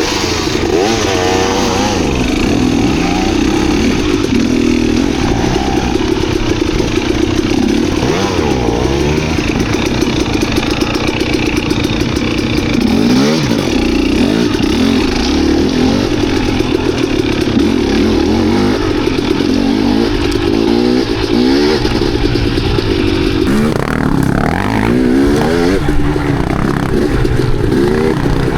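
Dirt bike engine running under load while ridden, its revs rising and falling again and again.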